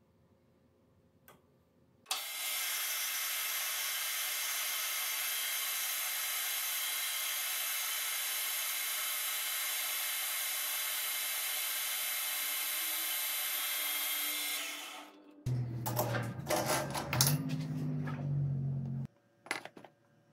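Metal lathe cutting a steel tube with a carbide insert: a steady, high-pitched cutting hiss that starts about two seconds in and lasts some twelve seconds before fading out. A lower machine hum with clatter follows for about three and a half seconds and cuts off suddenly.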